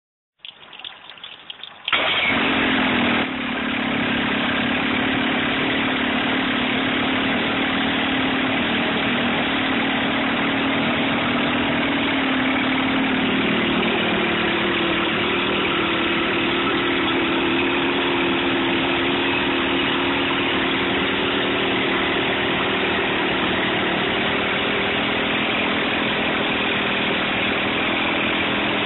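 Evinrude 35 HP two-stroke outboard engine, hood off, cranking briefly and catching about two seconds in. It runs fast for about a second, then settles to a steady idle whose note rises slightly about halfway through.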